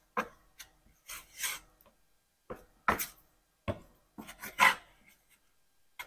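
Body filler being mixed by hand to an even consistency, heard as a series of short, uneven scrapes.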